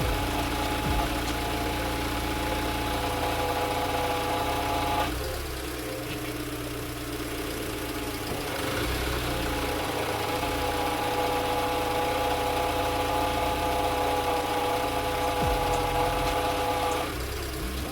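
Dacia engine idling with a steady whine over it while the freshly repaired and topped-up power steering is tested. The whine breaks off about five seconds in, returns around nine seconds and stops again near the end.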